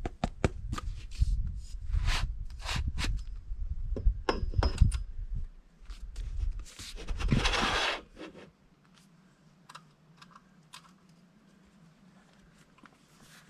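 Parts and packaging being handled: a run of knocks, clicks and scrapes, with a rustle lasting about a second near seven seconds in. After about eight seconds only a faint steady low hum remains.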